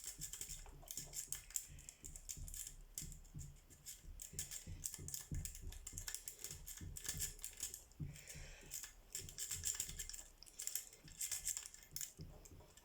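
Fast, irregular metallic clicking and rattling as a compound rake pick is worked in and out against the pins of a 14-pin cross lock while light turning tension is held on it.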